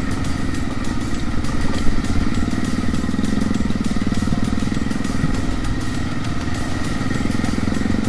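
Motorcycle engine running steadily at low speed, heard from on the bike itself, its note swelling slightly a few seconds in and again near the end.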